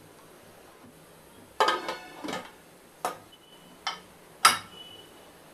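Five sharp metal clanks on an aluminium pressure cooker as its lid is put on and the whistle weight is set onto the vent, coming about every three-quarters of a second after a quiet start; the last and loudest one rings briefly.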